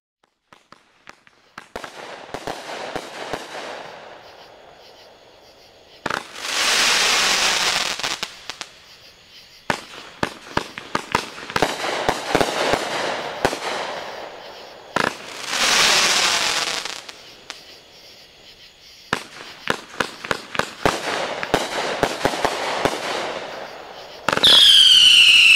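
Legend Fireworks Hot Head 500-gram consumer cake firing: repeated sharp launch and burst reports, with long stretches of dense crackling from the crackling-flower shots. Near the end a loud whistle falls in pitch.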